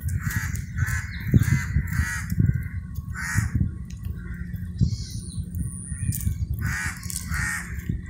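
Crows cawing repeatedly: a quick run of four harsh caws, a single caw midway, and two more near the end, over a low rumble.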